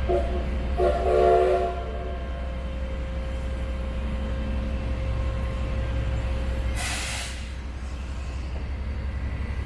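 Steam locomotive whistle sounding a short toot and then a longer chord-like blast of several pitches about a second in, over the steady rumble of the running train. A short hiss follows about seven seconds in.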